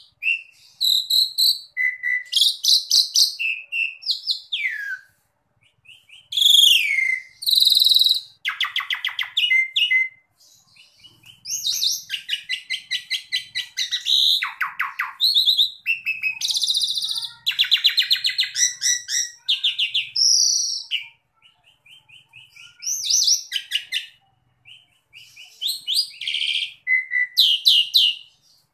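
Asian pied starling singing a varied song: whistled notes, harsh downward-sliding calls and fast rattling chatters, in phrases broken by short pauses.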